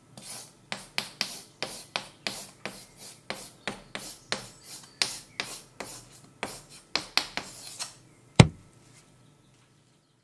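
Chalk scratching across a blackboard as a word is written in quick short strokes, about three a second. Near the end the writing stops and one sharp, loud tap follows.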